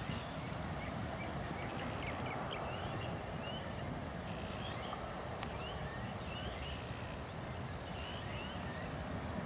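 Low, steady rumble of a distant twin-engine jet airliner at takeoff power as it lifts off and climbs away. Over it, birds give repeated short rising chirps.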